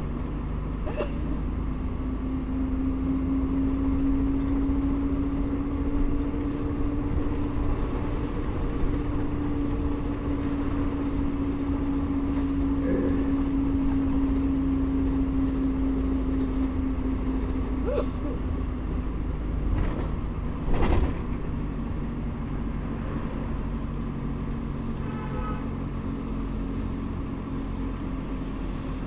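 Bus engine running with a steady hum over the low rumble of road movement, its note rising slightly in the first few seconds and settling lower about two-thirds of the way through. A few faint clicks, and one sharp knock about 21 seconds in.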